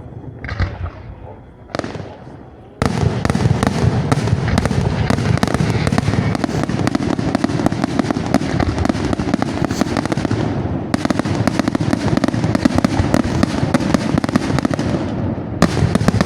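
Fireworks display: a few scattered bangs, then about three seconds in a dense, rapid barrage of bangs and crackles sets in suddenly and keeps going without a break.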